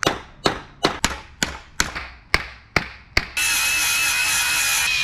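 A hammer striking sheet steel, about ten sharp ringing blows at a steady two to three a second, as a bent metal cabinet panel is banged straight. About three seconds in the hammering stops and a steady high hiss with a thin whistle starts.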